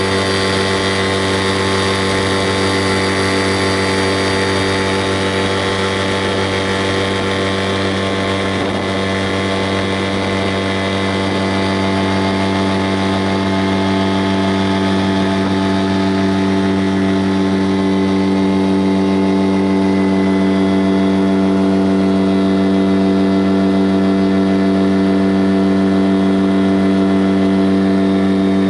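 Engine running at a steady speed: an even, unchanging hum that grows slightly louder past the middle.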